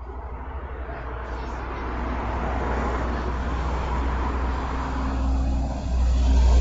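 Road vehicle going by, its engine and tyre noise swelling steadily louder, with a low rumble underneath.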